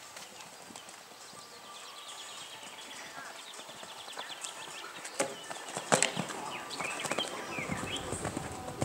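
Hoofbeats of a show-jumping horse cantering over a sand arena, with two sharp knocks about five and six seconds in.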